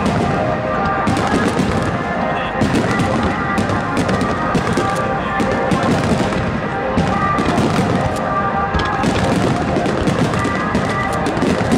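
Aerial fireworks shells bursting in quick succession, a dense run of bangs and crackles, with music playing over them.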